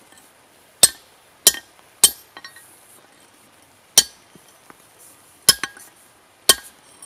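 Hammer blows on a steel punch driving a hole through a steel nail-header blank, which rests on a stone: six sharp, ringing metallic clinks at uneven intervals, with a few lighter taps between them.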